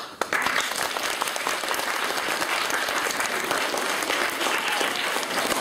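A small audience applauding: many hands clapping together, setting in almost at once and holding steady.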